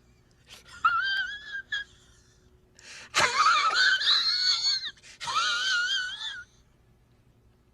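A high-pitched, wheezing laugh sound effect, the 'Zach laugh', in separate bursts with a wavering, wailing pitch. A short burst comes about half a second in and a louder, longer one from about three seconds in, which stops about six and a half seconds in.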